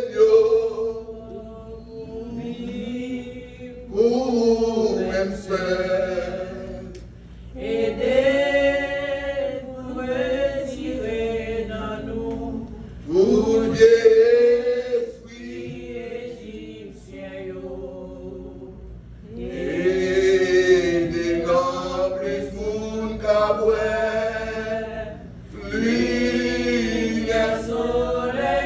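Voices singing a slow hymn together, unaccompanied, in long held phrases that rise and fall with short breaths between them.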